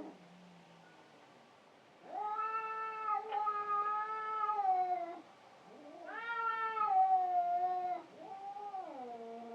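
Cats caterwauling in a fight: after about two seconds of quiet, three long, drawn-out yowls, the last one sliding down in pitch.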